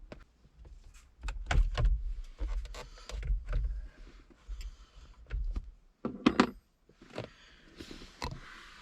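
Clicks, knocks and rattles of hand work on a steering wheel: an Allen wrench pushing on the airbag's spring clips and the plastic airbag module being worked loose. The loudest knocks come about one and a half to two seconds in, with a sharp click near the middle and another near the end.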